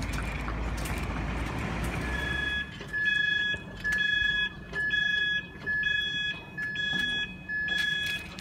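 Level crossing warning alarm starting about two seconds in: a high electronic tone that soon turns into a regular on-off beeping, about four beeps every three seconds, which warns that the barriers are about to come down. Before it starts there is a low rumble.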